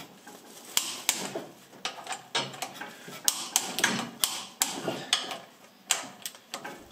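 Hand tools working on metal car parts: irregular sharp metallic clicks and knocks, roughly one every half second, with no steady machine running.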